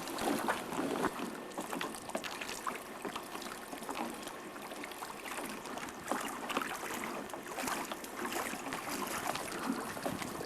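Water splashing and sloshing around a canoe: a steady wash of water noise broken by small irregular splashes.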